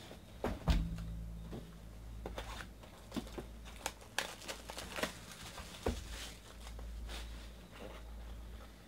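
A 2018 Bowman baseball card box being handled and opened, with a low thump near the start, then a run of clicks and crinkling of plastic wrap as the wrapped contents are pulled out.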